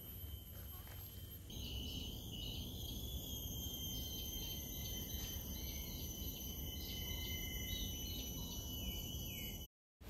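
Tropical rainforest insects calling: several steady high-pitched drones and trills, one of them pulsing a few times a second, with a bird's wavering whistle now and then. The chorus grows louder after about a second and a half and cuts off just before the end.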